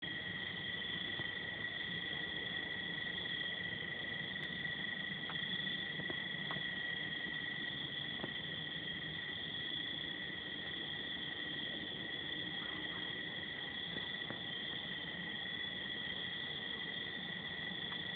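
Steady chorus of trilling insects, typical of crickets, in two high unbroken pitches, with a few faint clicks.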